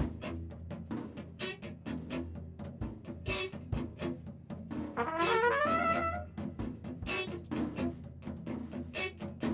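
Instrumental music: brass over a steady drum beat, with a rising brass run about halfway through.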